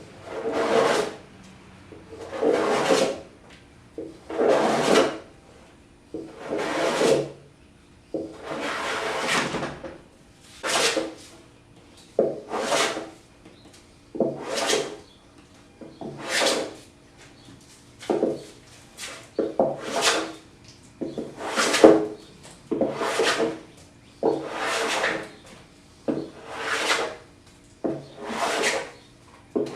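Stanley hand plane taking repeated passes along a cypress slab to flatten it: about seventeen rasping, shaving strokes, each up to a second long. They come about every two seconds at first, then quicker and shorter toward the end.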